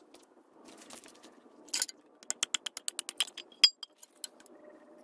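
A machete blade chopping into a stick of wood in quick light strokes: a rapid run of about a dozen sharp clicks with a metallic clink. The loudest strike comes near the end and rings briefly. A short scrape is heard a little before the chopping starts.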